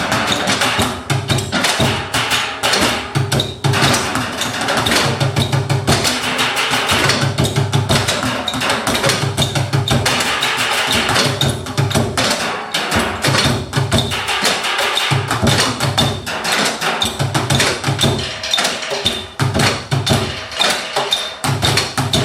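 Live percussion-heavy music: dense, rapid struck beats over a low bass that pulses in repeating rhythmic phrases.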